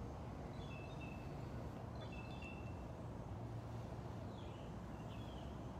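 Quiet outdoor background: a low steady rumble with a few faint, short bird chirps scattered through it, including two brief falling calls near the end.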